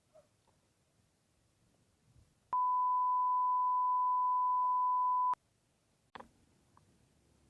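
A single electronic beep: one pure, steady high tone held for almost three seconds, switched on and off abruptly, like an edited-in bleep. About a second after it stops comes a short sharp knock.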